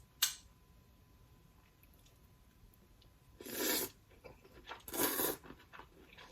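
Close-miked eating and food-handling sounds: a soft click just after the start, then two short crunching, rustling noises a little over a second apart, with quiet between.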